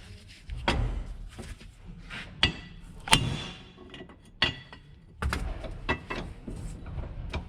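Hand tools working on a CFMoto ATV upper ball joint: scattered sharp metal clicks and clinks, a few louder ones ringing briefly.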